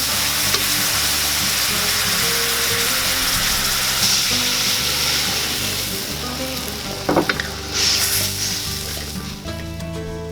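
Food sizzling in a cooking pan while being stirred, an even hiss that fades in the last few seconds. There are a couple of sharp clicks about seven seconds in, with background music throughout.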